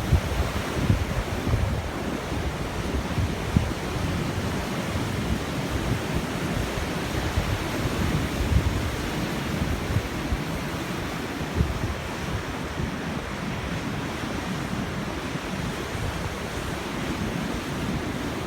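Rough sea surf left churning by a passing typhoon, with waves washing in continuously. Wind gusts buffet the microphone, stronger in the first few seconds.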